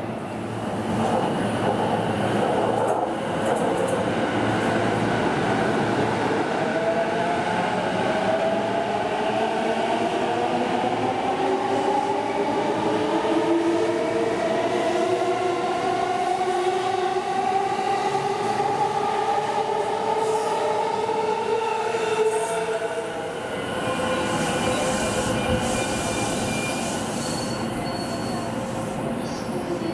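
JR commuter electric train pulling away: its traction motors whine in several tones that climb steadily in pitch as it accelerates, over running rumble, and fade a little after two-thirds of the way through.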